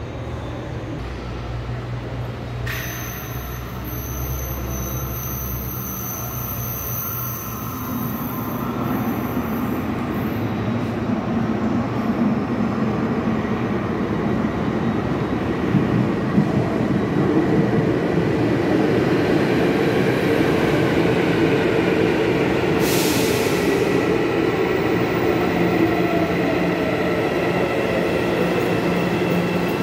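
Hyundai Rotem series 2000 metro train, an IGBT-VVVF electric multiple unit, coming out of a tunnel and pulling into the platform, growing louder as it nears. Steady inverter and motor tones sound over the wheel noise, and some slide down in pitch as it slows. A short hiss comes about three-quarters of the way through.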